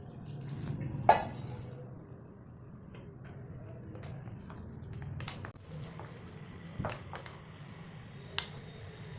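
Kitchen utensils clinking against dishes. A sharp, ringing clink about a second in, then lighter clinks and taps scattered through the rest, over a low steady background.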